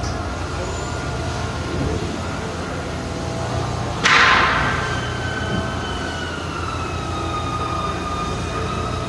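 Dahlih HC-2000 horizontal machining center running with a steady hum and whine. About four seconds in, a sudden loud hiss bursts out and fades, and a whine slowly falls in pitch after it.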